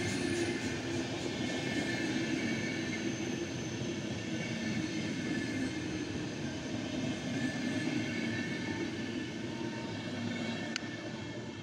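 Intercity passenger coaches rolling past on the rails, a steady wheel-and-bogie rumble that begins to fade near the end as the last coach goes by.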